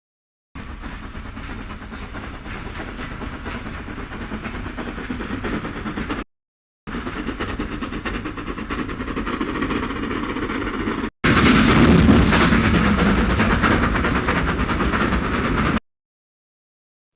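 Steady rumbling, rushing noise in three stretches, each starting and stopping abruptly on a hard cut, the last one louder than the others.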